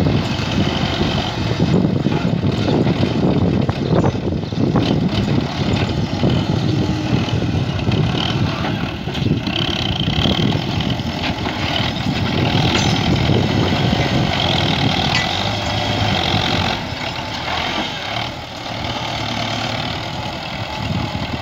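Belarus tractor's diesel engine running steadily under load as it works a front-end loader, backing up and driving the bucket into soil and rubble. Scattered knocks and scraping from the bucket and stones come through over the engine.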